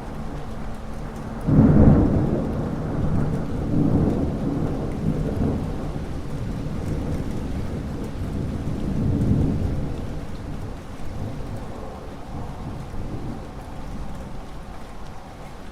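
Thunderstorm: steady rain with a sudden thunderclap about a second and a half in that rolls into a long low rumble, swelling twice more before slowly fading.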